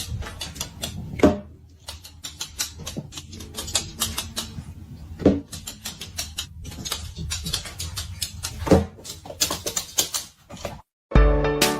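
Quick, irregular clicking and tapping over a low hum, with three louder knocks about a second, five seconds and nine seconds in.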